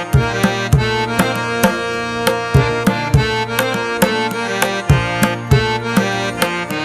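Background music: drum hits in a steady beat, about two a second, over sustained pitched tones.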